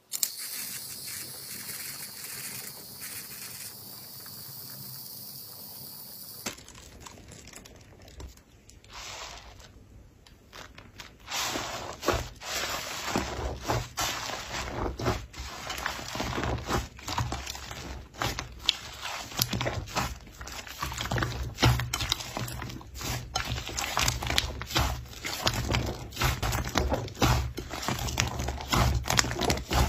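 Slime being handled, making a dense run of small crackling clicks and pops that starts about eleven seconds in after a quieter, hissy opening.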